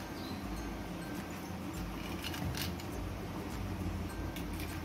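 A wooden toothpick being pushed through cut water lily stem pieces: faint squeaks and clicks of the stems being threaded, about two seconds in and again near the end.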